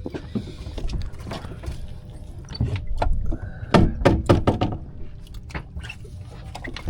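Scattered knocks and thuds of gear being handled on a small boat, over a low rumble, with a cluster of sharper knocks a few seconds in.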